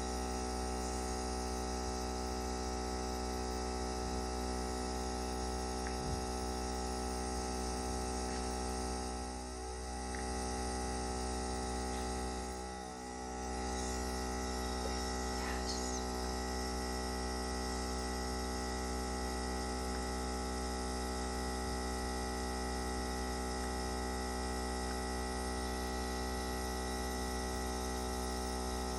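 Nebulizer compressor running with a steady electric hum, dipping briefly twice.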